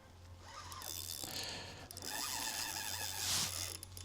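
Fishing reel ratcheting in a few bursts while a hooked rainbow trout fights on the line.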